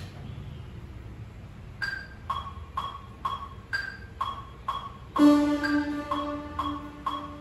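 Electronic melodic-techno synth music played live in Ableton Live. After a low steady hum, a repeating plucked synth note pattern of about two notes a second starts near two seconds in. A sustained synth chord with a low bass note comes in about five seconds in and is the loudest part.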